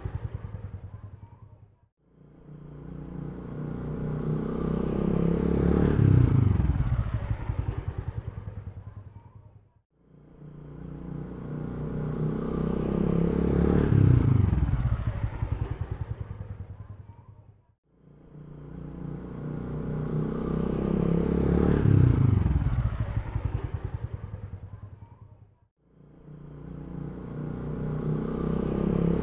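Motor vehicle engine passing by, growing louder, then fading away with a falling pitch. The same pass repeats about every eight seconds, four times.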